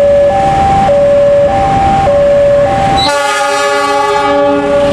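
KAI diesel locomotive sounding its horn, one chord of several notes lasting about a second and a half, starting about three seconds in, over the rumble of the approaching train. Throughout, a level-crossing alarm sounds its alternating two-note electronic warning, switching notes about every half second.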